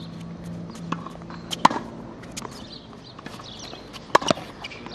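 A tennis ball struck hard by a racket twice, about two and a half seconds apart, during a groundstroke rally on a hard court, with fainter clicks and steps in between.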